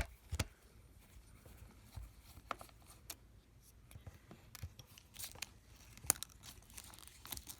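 Scattered small clicks, taps and scrapes of hand tools and parts being handled on an opened MacBook Pro's aluminium case, coming irregularly.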